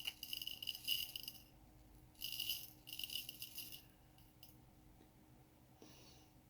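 Small resin diamond-painting drills poured into a diamond grinder's tray, making a light, high rattle in two spells of about a second and a half each, with a faint last trickle near the end.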